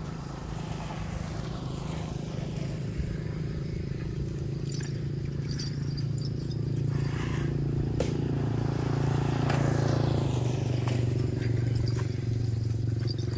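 An engine running steadily with a low hum, a little louder in the second half.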